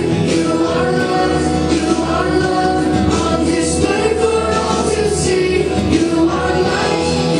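Song with a group of voices singing over an instrumental backing track.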